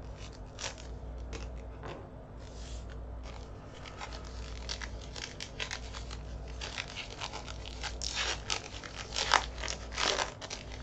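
Pokémon booster pack foil wrapper crinkling and tearing as it is opened, with trading cards being handled: many short crackly scratches and scrapes, busier in the second half.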